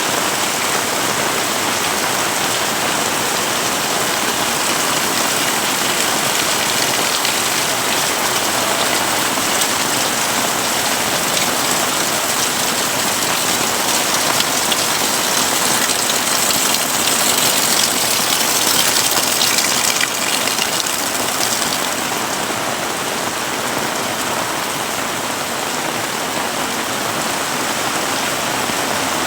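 Heavy rain falling and pattering on surfaces, a dense steady hiss. It grows louder and brighter about two-thirds of the way through, then drops back suddenly.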